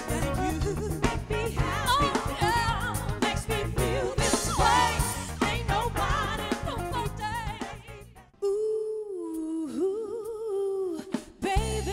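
Live soul band with drums, bass, guitar and several singers, the voices wavering with vibrato. At about eight seconds the band drops out abruptly. A single voice holds a long wavering note alone, and the full band comes back in near the end.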